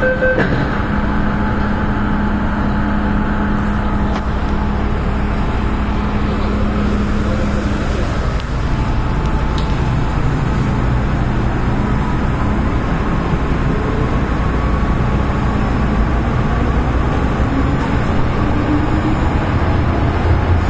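MTR M-Train metro car departing a station: the door-warning beeps stop just after the start as the doors shut, then steady running noise and hum as the train pulls away, with the traction motors' whine rising in pitch near the end as it gathers speed.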